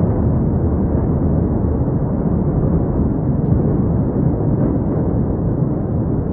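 Steady low rumbling noise with no distinct bangs or pops.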